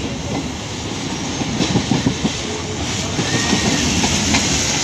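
Passenger train's wheels running over the track, a steady rumble with a burst of clattering knocks about halfway through, heard from an open window of the moving coach.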